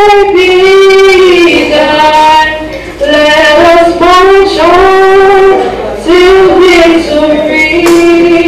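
A female voice singing a slow melody of long held notes, sliding between pitches.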